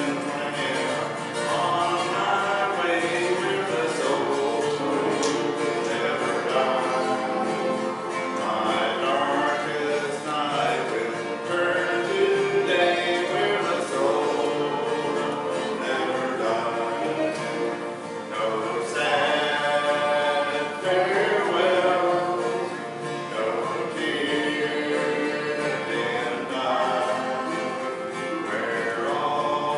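A gospel hymn sung with acoustic guitar and piano accompaniment.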